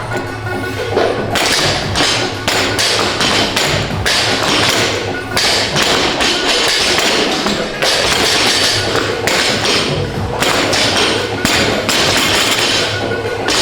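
Loaded barbells thudding down onto the gym floor again and again as several athletes do heavy deadlifts, over loud gym music.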